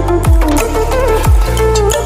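Background electronic music with deep bass kicks about once a second and a sliding melody line.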